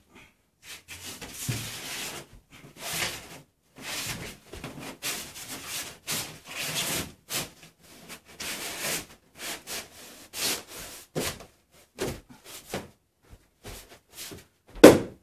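A 3-inch polyiso rigid foam insulation board scraping and rubbing against wooden ceiling beams as it is pushed up into a tight gap, in a run of long scrapes, then shorter knocks and a loud thump near the end as it is pressed into place.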